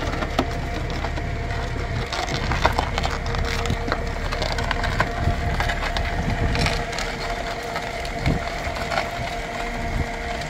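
A burning Volkswagen Scirocco: irregular crackling and snapping with sharp pops, over a low rumble.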